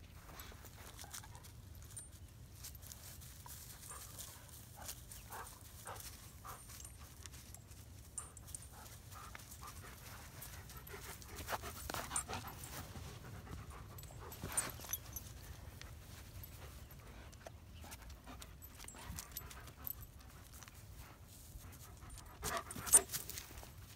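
Dogs (Labrador retrievers and a German Shepherd) panting and sniffing close by, with faint rustling and scuffing of paws on dry grass. A brief louder scuffle comes near the end.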